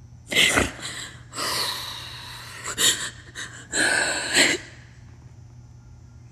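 A frightened woman breathing hard and gasping: a run of five loud breaths in and out, some long and some short, over about four seconds, the sound of someone upset and close to panic.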